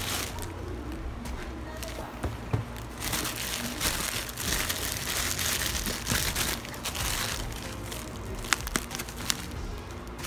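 Plastic courier mailer bag crinkling and rustling as it is handled and pulled open, with a few sharp clicks near the end.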